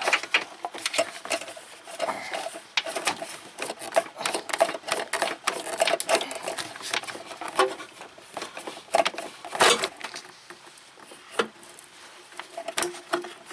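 Irregular clicks, knocks and rubbing as the rubber upper radiator hose is twisted and worked off its neck by hand, with a metal hose clamp and tool tapping against it.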